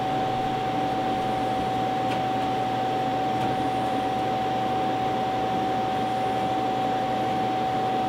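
Jet-Tech commercial undercounter dishwasher draining its wash tank: a steady rushing hum with one constant tone running through it, unchanging.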